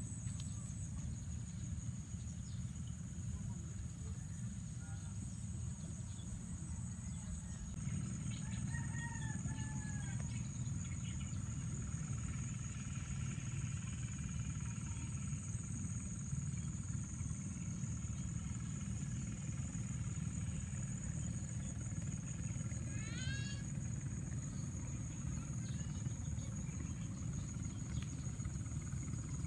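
Steady high-pitched insect chorus over a rice field, with a low wind rumble on the microphone. A bird calls a few times about eight seconds in and gives a quick run of notes near the end.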